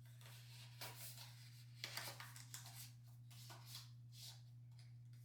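Faint rustling and scraping as paper and packaging are handled, over a steady low electrical hum.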